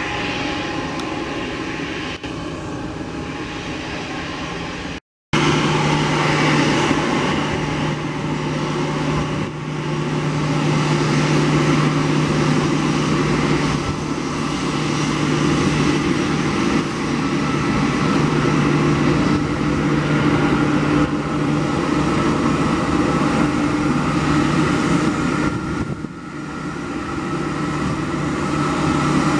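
Airbus A320-200 jet engines running steadily at taxi power. The sound cuts out briefly about five seconds in, then returns louder with a steady low hum under the engine noise.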